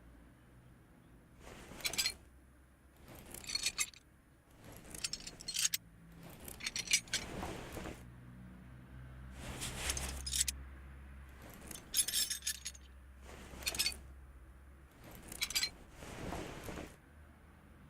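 Small metal or glass objects clinking and jangling in short bursts, about nine times, as they are handled, over a low steady hum.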